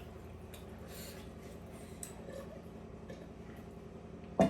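Quiet eating at the table: a few faint light ticks over a steady low hum, then one sharp knock just before the end.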